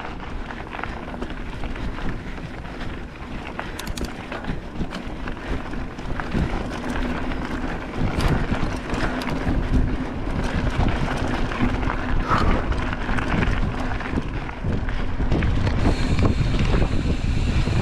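Wind buffeting the microphone of a rider's camera while a bicycle rolls along a dirt trail, with tyre and trail crackle throughout. It gets louder about three-quarters of the way through.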